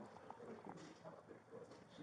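Near silence: faint scattered ticks and rustles.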